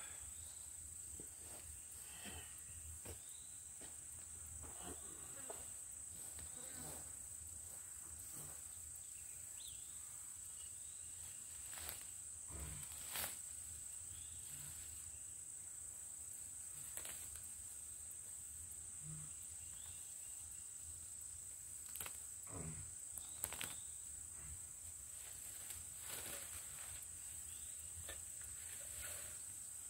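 Steady high-pitched drone of insects, with scattered rustles and snaps of weeds and debris being pulled up and gathered by hand in the grass.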